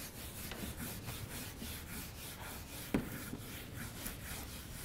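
Chalk scratching on a blackboard in a quick series of short strokes as something is written, with one sharp tap about three seconds in.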